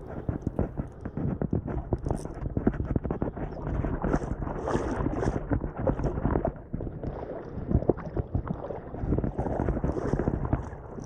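A fly reel being wound in by hand while a hooked fish is played, with dense, irregular clicking and rubbing from the reel and rod, mixed with wind buffeting the microphone.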